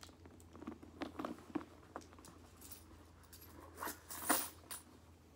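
Loose coins clinking as they are handled and dropped back into a leather handbag, with scattered small clicks. The loudest jingle comes about four seconds in.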